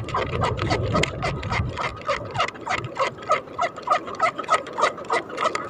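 Fishing line being hauled in hand over hand, giving a quick, even run of short squeaky strokes, about four or five a second. A low rumble sits under the first two seconds.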